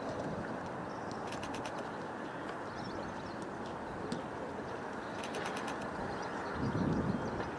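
Outdoor ambience: a steady rushing noise, broken twice by a short burst of rapid high clicking, about a second in and again after five seconds, with a louder low rumble near the end.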